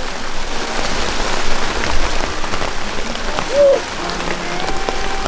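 Steady rain falling on the forest and dripping from the cabin's roof edge, an even hiss. A short note that rises and falls sounds once, about three and a half seconds in.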